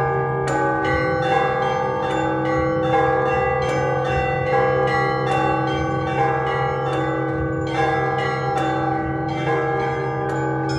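Russian Orthodox church bells ringing a festive peal. Several bells are struck together about every 0.8 s over faster chiming from smaller bells, with a deep bell's low hum sustained underneath.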